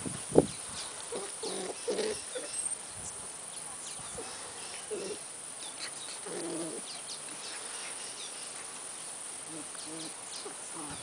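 A Siberian Husky and an Australian Cattle Dog puppy play-wrestling, making short low growls and grunts now and then. A sharp knock comes about half a second in.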